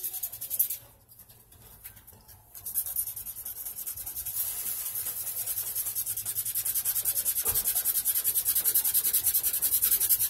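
Mini bike's metal frame tube being hand-sanded: a few short scrapes, then from about three seconds in quick, even back-and-forth scrubbing strokes, about five a second, rubbing down the old paint.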